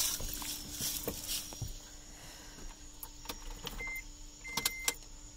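Scattered soft clicks and knocks of someone moving around inside a Toyota Tacoma pickup's cab, then two short high electronic beeps about four seconds in, the second a little longer.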